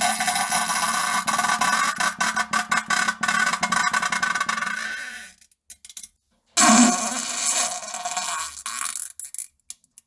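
Fart and pooping sounds: a long, rapidly crackling one that fades out about five seconds in, then after a short silence a second, shorter one that starts with a low buzz and splutters away.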